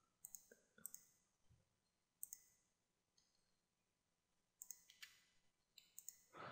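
Faint clicks of a computer mouse and keyboard keys: scattered single clicks and quick pairs, with a cluster near the end.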